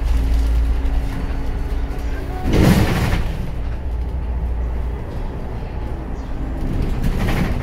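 Cabin sound of a 2018 Hyundai Blue City hybrid low-floor city bus: a steady low drive rumble with a faint whine. A loud hiss of air comes about two and a half seconds in, and a smaller one near the end.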